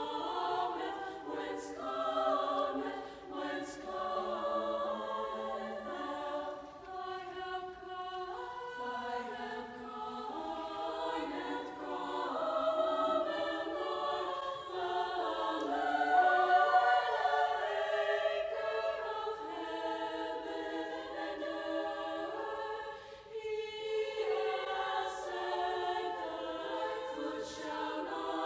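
Choir of mostly female voices singing in several-part harmony, with notes held and changing slowly, swelling to its loudest about halfway through.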